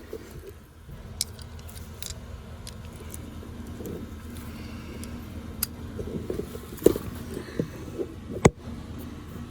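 Scattered metal clinks and knocks from a ratchet and socket working the bolts, with a sharp knock about eight and a half seconds in, over a low steady rumble.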